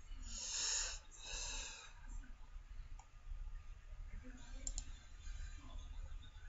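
Two breathy exhales in the first two seconds, then a few soft computer mouse clicks, over a low steady hum.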